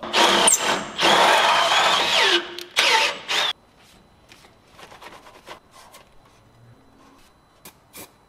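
Cordless drill boring holes into the metal bull bar, running in three bursts with the bit whining, and stopping about three and a half seconds in.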